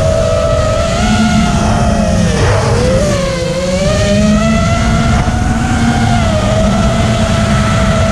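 QAV210 racing quadcopter's 2306 2400kv brushless motors on 4S with 5045 three-blade props, whining as they are throttled through a dive. The pitch sags a few seconds in and climbs again, over a steady rush of wind on the onboard camera's microphone.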